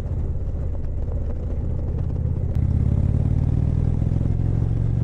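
Indian Chieftain motorcycle's V-twin engine running under way; it gets louder about halfway through.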